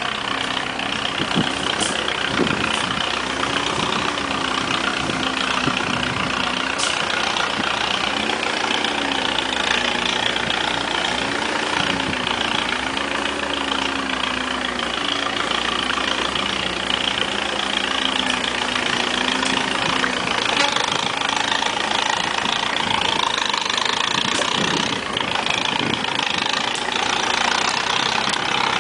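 Off-road vehicle's engine running at low speed as it crawls over a deeply rutted dirt trail, heard from inside the cab, its note rising and falling repeatedly with the throttle, with scattered low knocks.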